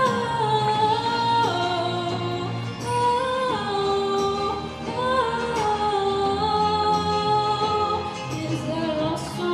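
A young woman singing a slow song into a microphone, holding long notes, over low notes from her own electric bass guitar.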